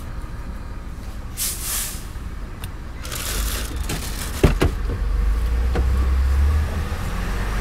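Movement inside a car as someone climbs in: rustling, then a car door shutting with a sharp thud about four and a half seconds in, over a steady low rumble.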